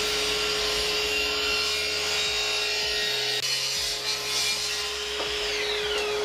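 Mitre saw running and cutting through the end of a 32 mm Sapele hardwood board to square it off; the motor's whine holds steady, then winds down about five seconds in. A dust extractor hums steadily underneath.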